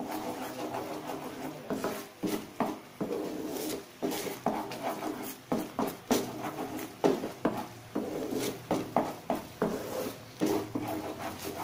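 Thick hot-and-sweet garlic sauce boiling in a pan, with irregular pops and knocks over a steady low hum.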